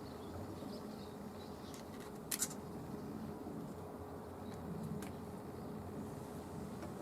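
A few faint clicks, with one sharper click about two and a half seconds in, over a steady low hum.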